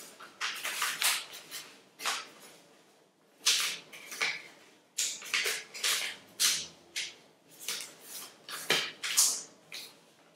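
Paper being folded and creased by hand: an irregular run of short rustles and scrapes as fingers press and slide along the folds, with brief pauses between.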